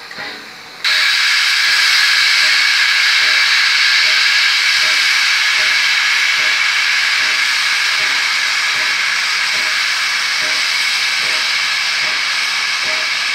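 USATC S160 2-8-0 steam locomotive venting steam in a loud, steady hiss that starts suddenly about a second in and eases only slightly toward the end.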